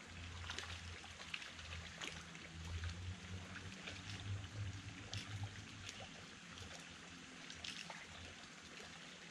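Faint trickling water with scattered light ticks, over a low rumble that fades about halfway through.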